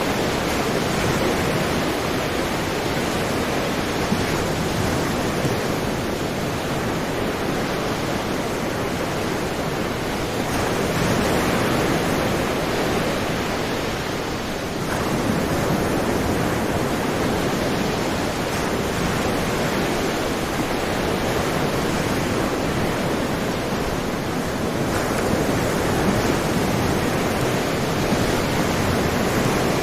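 Sea waves washing onto a shore: a continuous rushing surf that swells and eases gently, with a brief lull about halfway through.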